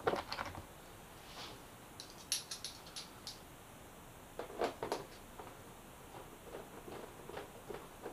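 Scattered light clicks and rattles as a hand tool drives a bolt into a motorcycle's fairing to hold the panel in place.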